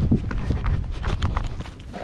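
Quick footsteps of someone running over sand and loose stones.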